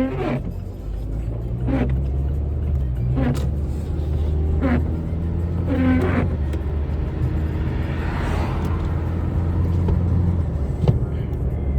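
Steady low rumble of a car, with a short pitched sound repeating about every second and a half and a brief swell of noise about eight seconds in.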